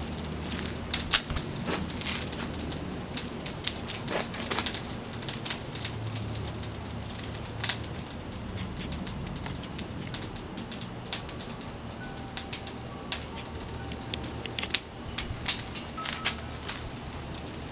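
Charcoal crackling as it catches in a Weber chimney starter, with irregular sharp pops and ticks over a low steady background.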